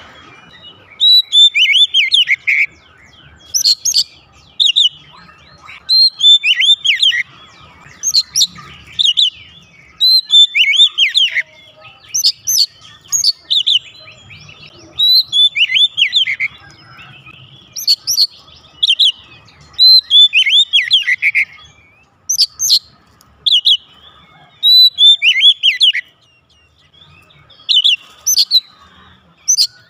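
Oriental magpie-robin singing loudly in full song: short phrases of clear whistles every couple of seconds, each with quick falling notes and sharp high notes.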